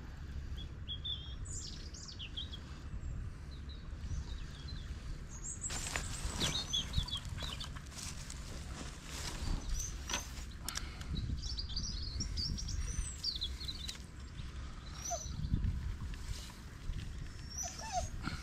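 Small birds chirping and singing, scattered short high calls, over a steady low rumble. From about six seconds in there are several sharp clicks and rustles.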